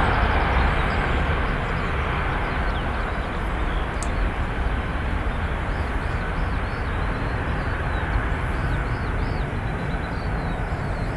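Jet airliner engine noise: a steady broad rush over a low rumble, easing a little over the first couple of seconds and then holding level. A few faint high chirps come in around the middle.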